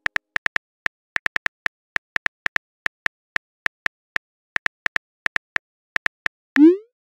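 Phone keyboard key clicks from simulated typing, a quick irregular run of about two dozen taps, then near the end one short rising swoosh as the text message is sent.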